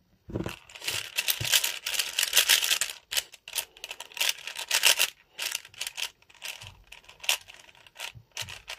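Plastic Rubik's cube being turned by hand: a fast run of clicking and clacking from the layers, then single clicks and turns every so often.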